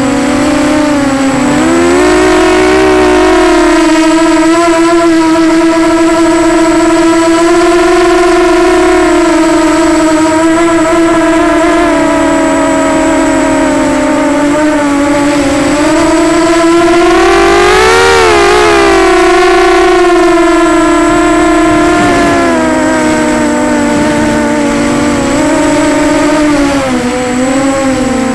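Walkera Runner 250 quadcopter's brushless motors and propellers whining steadily in flight, heard up close from the onboard camera. The whine rises in pitch about two-thirds of the way through as the motors spin up, then settles, dipping again near the end.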